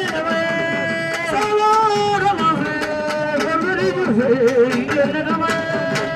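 Music: a long-held, wavering melody line over repeated drum strokes.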